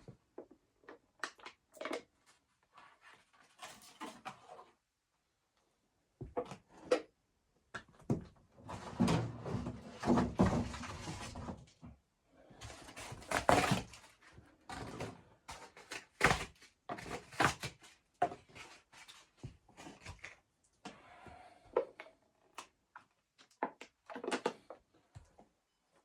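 Irregular clicks, knocks and thuds of objects being handled in a small room, with a denser run of noise for a few seconds around the middle.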